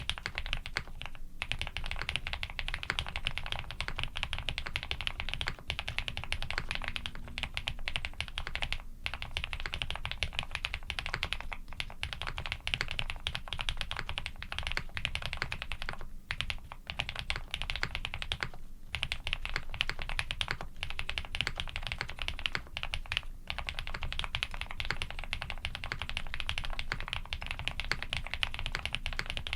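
Continuous fast typing on a custom mechanical keyboard with lubed Cherry-housing, Cream-stem linear switches on a POM plate and GMK keycaps: a dense stream of key clacks with only brief pauses.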